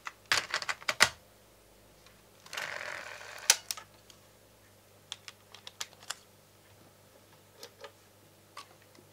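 A cassette is handled and loaded into a Sony Walkman portable cassette recorder. A quick run of plastic clicks and clacks comes first, then a brief rustle and a single sharp snap about three and a half seconds in, then scattered lighter clicks.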